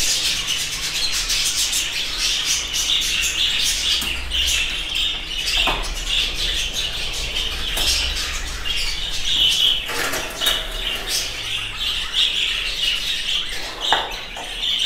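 Many budgerigars chattering and chirping steadily in their breeding cages, with occasional sharp clicks of the wire cages and feed dishes as food is put in.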